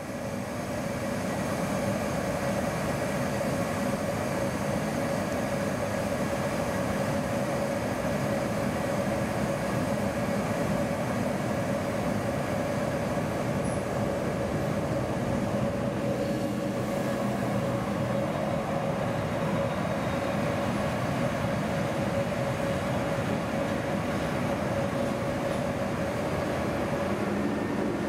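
Vy Rc-class electric locomotive standing at the platform with its equipment running: a steady hum with one constant mid-pitched tone.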